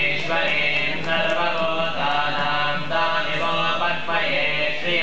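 Devotional chanting of Sanskrit mantras, with voices holding notes for about a second at a time.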